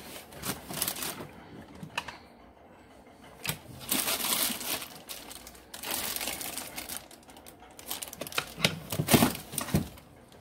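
Plastic IP camera housings clattering and knocking together as a hand rummages through a pile of them, in several short bursts of rattling and rustling.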